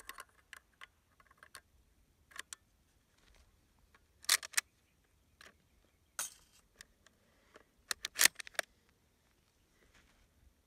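Bolt-action 8mm Mauser rifle being reloaded from a stripper clip: a series of metallic clicks and clacks as cartridges are pushed into the magazine and the bolt is worked, the loudest clacks about four seconds in and again about eight seconds in.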